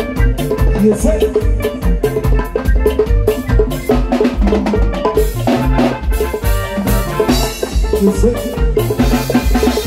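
Live band music: electric guitar, bass guitar, keyboard and drum kit playing over a steady, loud drum beat.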